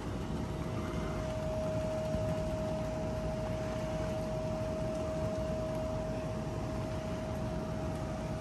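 Electric inflatable blower running steadily, filling a large inflatable water slide with air: an even rush of air with a steady hum-like whine on top.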